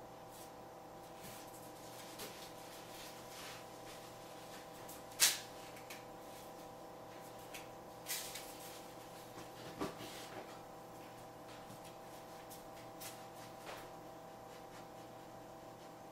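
A dog rummaging in a plastic kitchen trash can: scattered rustles and clicks of garbage being moved, with a sharp knock about five seconds in and more knocks near eight and ten seconds as the can's swing lid is pushed and falls back. A steady hum runs underneath.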